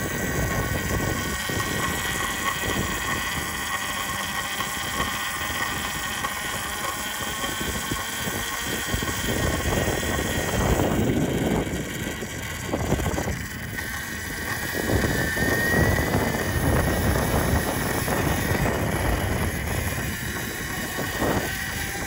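Wind rushing over the microphone, with a steady rubbing whine from the chain drive of a 72-volt electric bike under throttle. The whine rises briefly about fifteen seconds in. The rider suspects the front sprocket is catching on the chain.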